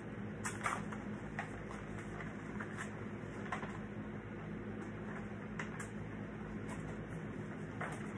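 Scattered light crinkles and taps as a rolled paper poster is handled, over a steady low hum.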